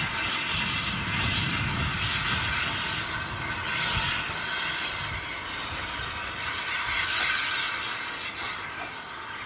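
Exhaust beats of a small 1897 Avonside 0-4-0 saddle tank steam locomotive working along the track, chuffing about once a second over a low rumble. The sound fades a little near the end as it moves away.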